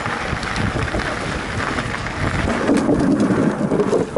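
Mountain bike rolling fast along a trail: tyre rumble on the loose surface mixed with wind buffeting the microphone, getting heavier about two and a half seconds in.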